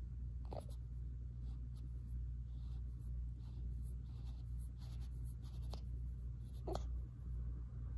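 A swaddled newborn baby making a few short fussing noises while squirming, with light rustling of the swaddle, over a steady low hum.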